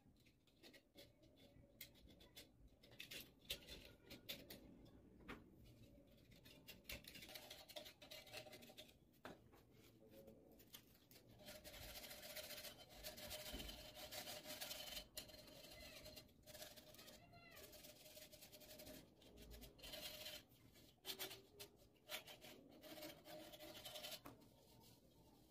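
Polystyrene foam being cut and scraped with a utility knife blade: a string of short scratchy rubbing strokes, with squeaky tones at times as the blade drags through the foam.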